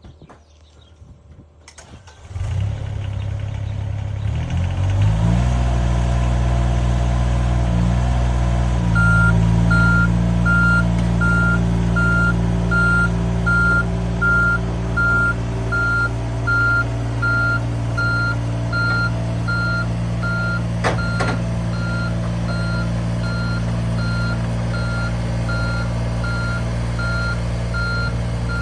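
Excavator diesel engine starting up about two seconds in and climbing in speed, then running steadily while its travel alarm beeps about once a second as the machine tracks. A single sharp knock sounds about three quarters of the way through.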